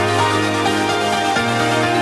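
Background electronic music with held synth chords and a bass line that changes note about a second and a half in.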